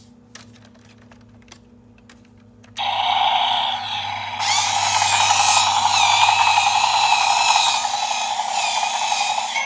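Toy State CAT Machines toy bulldozer's electric drive motor and plastic gearbox running, starting suddenly about three seconds in with a loud grinding, ratcheting noise that grows louder a second and a half later. This is the odd noise it has made since its tracks were refitted, which the owner can't explain.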